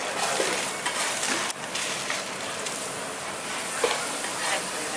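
Meat sizzling steadily in frying pans on induction hobs, with short crinkles and clicks as a burrito is folded in aluminium foil.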